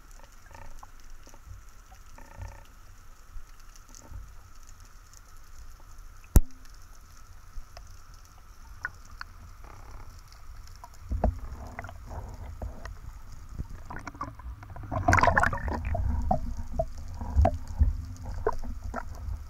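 Underwater sound heard through a camera housing during a spearfishing ascent: a steady low water rumble with scattered clicks and knocks from the speargun and gear, and one sharp click about six seconds in. From about eleven seconds in the knocking and bubbling grow busier, loudest around fifteen seconds.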